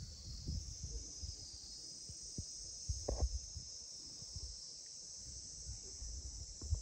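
A steady, high-pitched chorus of insects, with irregular low thumps underneath.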